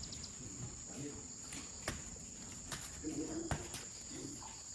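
Insects chirring steadily on one high-pitched tone, faint against the background. A few soft sharp clicks come about two seconds and three and a half seconds in.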